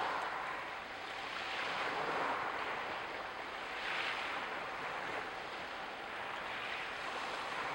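Steady outdoor rushing noise that swells and eases every second or two, the kind that wind or distant surf makes. The perched hummingbird makes no sound.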